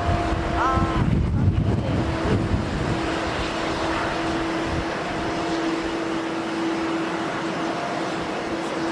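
Boeing 737-800's CFM56 turbofan engines on a departure: steady jet noise with a constant droning tone. Gusts of strong wind buffet the microphone during the first few seconds.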